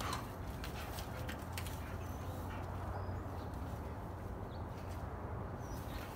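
Outdoor backyard ambience: a steady low rumble, a few sharp clicks in the first second and again near the end, and several faint short bird chirps in the middle.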